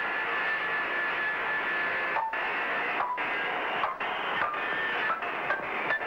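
Cartoon fight-cloud sound effect: a continuous noisy scuffling racket with short squeaks scattered through it and a few brief dropouts.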